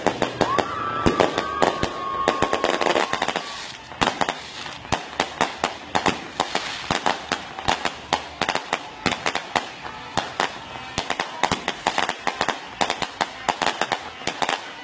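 Fireworks going off: a dense run of popping and crackling reports from aerial shells and firecrackers, several a second throughout. In the first few seconds a steady high whistling tone sounds over the bangs.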